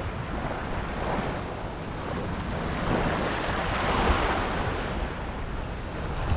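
Surf washing onto the beach, swelling and easing as waves come in, with wind rumbling on the microphone.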